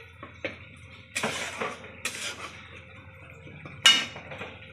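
Steel spatula scraping and knocking against a steel kadai while stirring a thick masala gravy, a few strokes, then a louder ringing metal clank about four seconds in as the spatula is set down in the pan.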